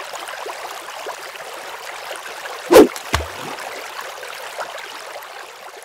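Rushing-water sound effect, a steady hiss with a loud sharp hit about three seconds in and a smaller one just after, fading away near the end.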